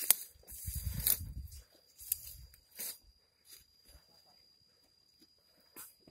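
Irregular rustling and scraping bursts of leaves and stems brushing against the phone while moving through dense porang plants and weeds, busiest in the first few seconds and fainter after. A faint steady high tone sits underneath.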